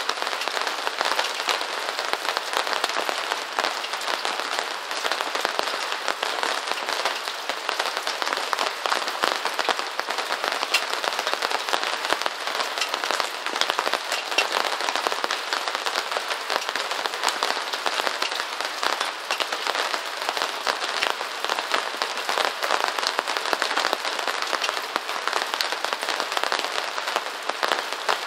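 Steady rain falling on a surface: an even, dense patter of countless small drop ticks, with no low rumble and no change in strength.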